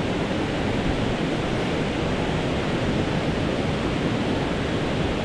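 Steady rush of river water pouring over a weir and churning into white foam: an even, continuous roar with no breaks.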